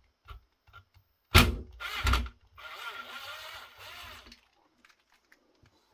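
Small cordless electric screwdriver backing out the fine-threaded screws that hold a fan-controller circuit board, its motor whirring steadily for about two seconds. Two loud clacks come before it, about a second and a half and two seconds in, with a few light clicks before those.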